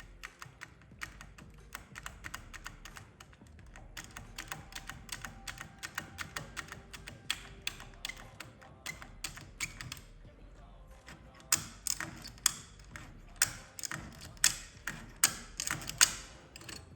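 Small metallic clicks of a DM lever decoder being worked in a Chinese 3x3 lever safe lock as its levers are picked: a long run of light clicks, then louder, sharper clicks about every half second near the end.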